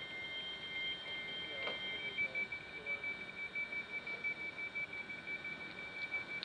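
Steady high-pitched electronic tones: two at first, then from about two seconds in a single tone that warbles in level a few times a second, with faint voices in the background.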